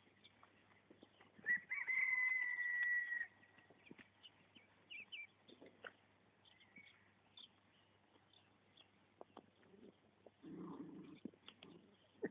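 Jack Russell terrier whining once, a high steady note held for about a second and a half, among faint scattered clicks.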